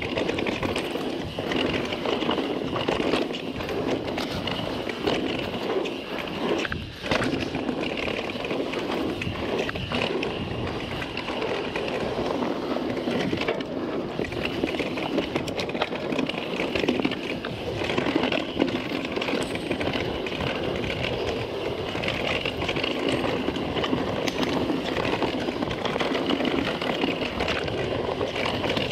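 Guerrilla Gravity MegaTrail mountain bike coasting fast down a dirt singletrack: tyres rolling over dirt and roots with a continual clatter of short knocks and rattles from the bike.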